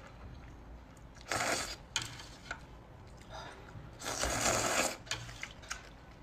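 A person slurping noodles out of spicy broth, twice: a short slurp about a second in and a longer one about four seconds in, with a few faint clicks in between.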